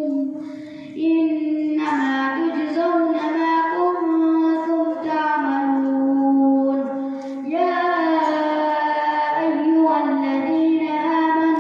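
A boy reciting the Quran in melodic qiraat style, holding long drawn-out notes that bend slowly in pitch, with a short breath pause about a second in.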